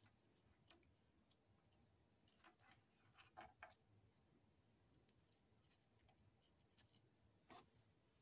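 Near silence with a few faint, scattered clicks and taps as the rhinestone sun catcher, with its metal chain and bead strands, is handled.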